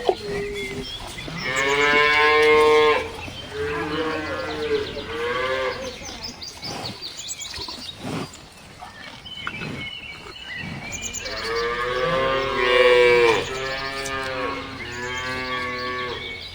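A cow mooing in two bouts, each a long moo followed by two shorter ones; the second bout starts about eleven seconds in.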